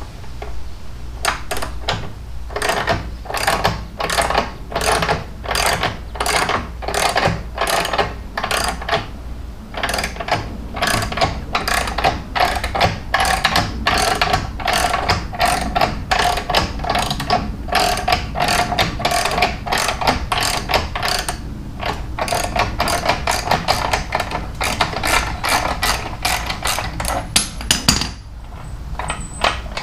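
A ratchet clicking in steady, repeated strokes, about two clicks a second, with a couple of brief pauses: the ratcheting used to lower the motorcycle.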